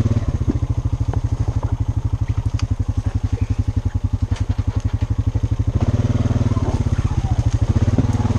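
Honda ATV's single-cylinder engine running at low trail speed with a steady, even pulsing that picks up a little about six seconds in. Scattered small snaps and scrapes of twigs and branches come against the machine over the engine.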